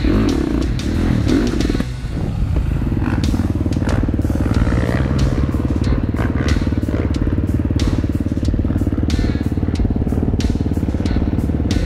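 Dirt bike engine idling steadily, with light clicks and rustles over it.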